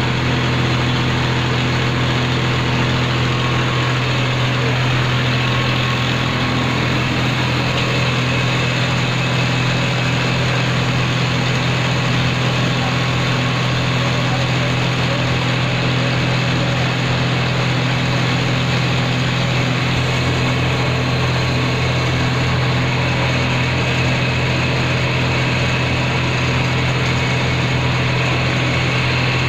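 Kinnow orange washing, waxing and grading machine running: a steady mechanical noise with a strong low hum.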